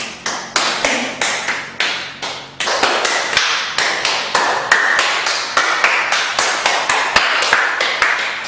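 Single hand claps, one at a time, in an even rhythm of about three a second, picking up slightly after a couple of seconds: a clap being passed around a circle of people and sped up.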